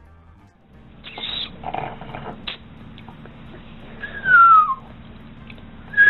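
A person whistling a single clean note that slides down in pitch, heard about four seconds in and starting again right at the end. It is preceded by a few short, noisy sounds about a second in.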